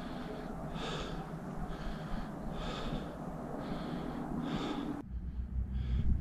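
Close-up breathing, hard and quick, with a hissy puff about once a second over a steady rushing background. About five seconds in the sound cuts to a low rumble.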